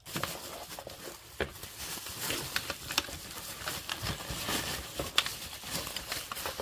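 Rustling and crinkling of packaging being handled while a nail dust collector is unpacked, dotted with many small clicks and taps.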